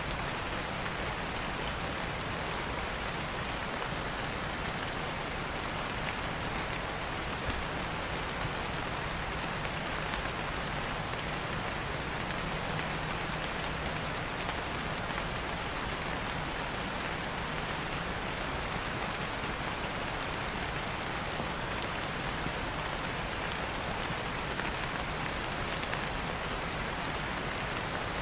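Steady rain falling, an even hiss that keeps on without break or change.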